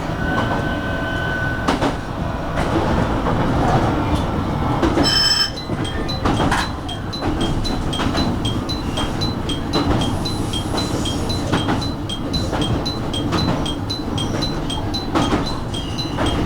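JR Kyushu 815 series electric train running, heard from the cab: a steady rumble of wheels on rail. A short electronic beep sounds about five seconds in, and after it an even ticking at about two a second.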